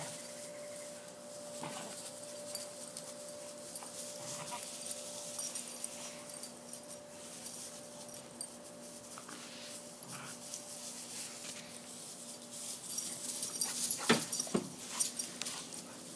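Pit bull puppies playing, with short whimpers and yips now and then and a louder, sharper cry near the end.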